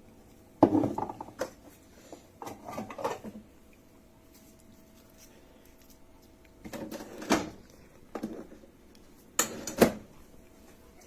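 Knocks and rattles of a coffee grinder's parts being handled, in four separate bouts of bumping and clattering. The grinder's motor is not running.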